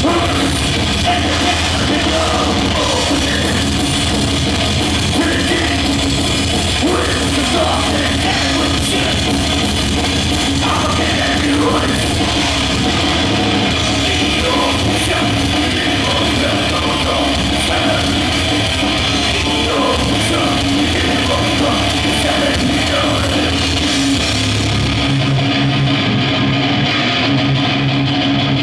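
Death/thrash metal band playing at full volume at a soundcheck: distorted electric guitars, bass and a driving drum kit. About 25 seconds in, the drums and low end drop out, leaving the guitar.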